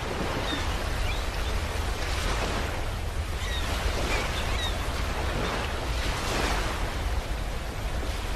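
Steady rushing noise with a deep rumble beneath it, swelling and easing irregularly like surf, with a few faint short chirps above it.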